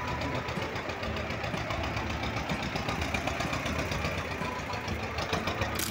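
1980 T-25 tractor's two-cylinder air-cooled diesel engine running steadily at an even level.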